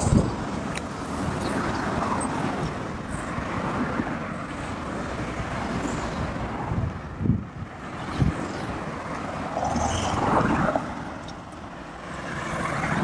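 Car driving through city traffic: steady road and engine noise, with a few brief bumps.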